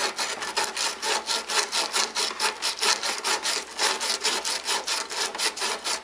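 A strip of emery cloth is pulled shoeshine-style around a copper refrigerant tube, cleaning it before brazing. It makes an even, rapid rasping rhythm of about six strokes a second.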